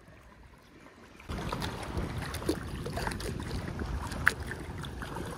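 Quiet for about a second, then an abrupt change to a steady rush of wind buffeting the microphone over moving water, with scattered small clicks.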